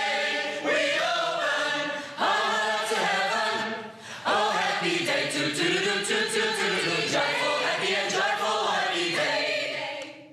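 A choir singing in sustained phrases, with brief breaks between phrases about half a second, two seconds and four seconds in.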